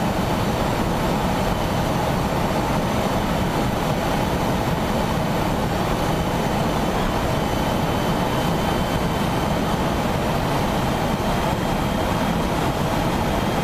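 Steady rush of wind and road noise at racing speed, picked up by a camera mounted on an electric racing motorcycle, with a faint steady high whine over it.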